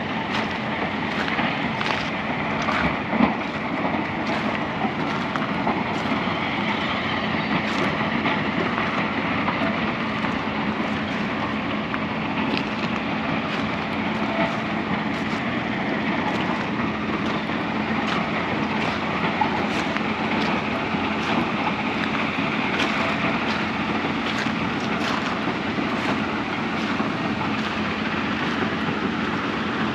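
Steady rushing of a river's flowing water, with faint footsteps ticking about once a second.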